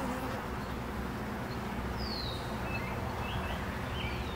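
Honeybees from an open hive buzzing in a steady, even drone. The colony is upset by the hive being opened and worked.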